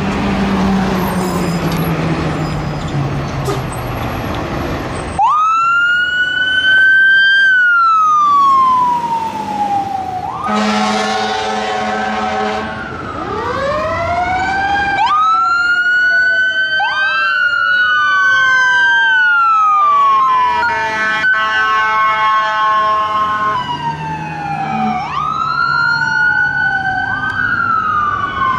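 Fire apparatus leaving on a call: diesel engines running for the first few seconds, then sirens start wailing about five seconds in, each sweep rising quickly and falling slowly, with two or more sirens overlapping. Horn blasts sound twice over the sirens.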